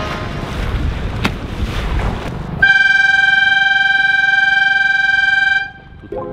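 A low rushing noise, then about two and a half seconds in, a single long blast of a signal horn at one steady pitch, lasting about three seconds and cutting off sharply. It is the kind of horn a race committee sounds as a start or postponement signal in a sailing race.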